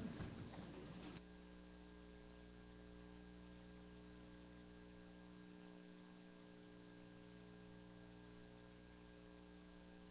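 Near silence with a steady faint electrical hum. A short click comes about a second in, as the fading room sound drops away.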